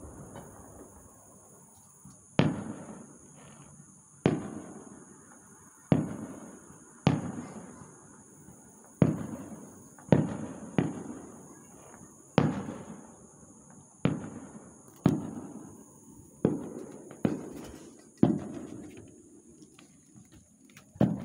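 Distant aerial fireworks shells bursting one after another, a sharp bang every one to two seconds, each followed by an echo that dies away over about a second.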